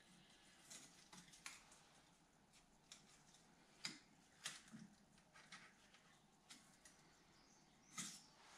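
Near silence with faint, scattered light clicks and taps of a piston and ring being handled in a lathe chuck by gloved hands; the lathe is not running.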